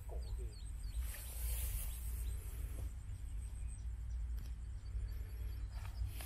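Open-air field ambience: wind rumbling on the microphone, with a few faint short bird chirps in the first half-second.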